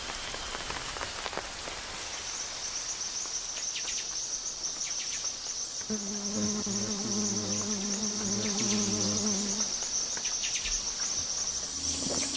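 Rainforest insects trilling in a steady, high, pulsing chorus that sets in about two seconds in. A lower, wavering pitched call sounds for a few seconds in the middle.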